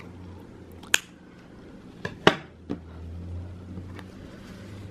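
A few short sharp clicks and snips of scissors cutting a yarn tail and being handled, the loudest a little past halfway, over a low steady hum.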